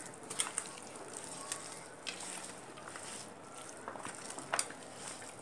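A hand squishing and kneading raw mutton with onion, tomato and spices in a steel bowl: faint wet squelching with a few soft clicks.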